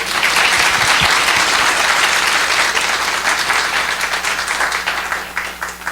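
Congregation applauding, the clapping thinning to a few last scattered claps near the end.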